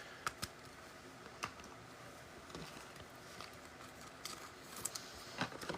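Faint, scattered clicks and light taps of acetate trading cards being handled and slid through a pack, a few closer together near the end.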